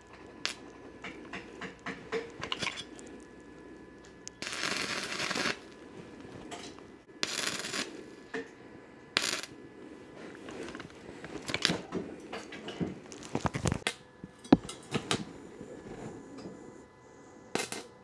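Thin metal pieces clinking and clattering as they are handled and set against each other, with scattered sharp knocks and two short bursts of hiss, about four and a half and seven seconds in.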